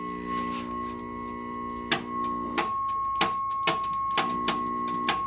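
Sound from a vintage tube television's speaker: a held chord of steady tones that fades out about two and a half seconds in, over a steady high-pitched tone. A series of seven sharp clicks comes in the second half, about half a second apart.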